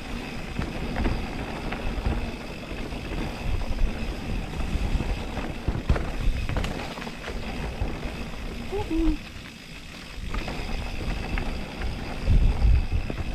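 Mountain bike ridden over a rough dirt trail: wind rushing over the microphone with steady rattling and knocking from the bike, a brief squeak about two-thirds of the way through and a louder gust of wind near the end.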